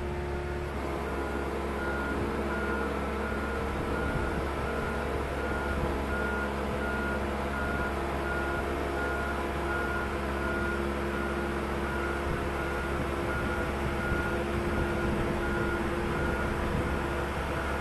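Warning beeper on yacht transport or lift machinery, sounding short high beeps at an even pace, a bit more than one a second. Under the beeps runs a steady low machine hum.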